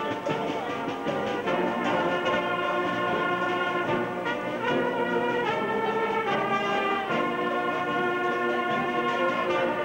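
A marching brass band playing a tune together, trumpets and other brass in full chords, the notes held and moving on every half second to a second.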